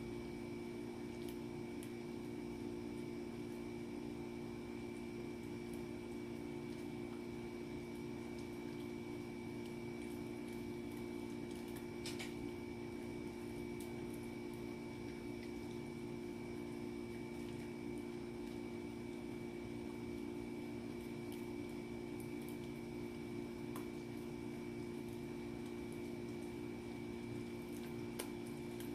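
A small dog gnawing a chew stick: faint, scattered clicks and wet squishing over a steady hum with a faint high whine.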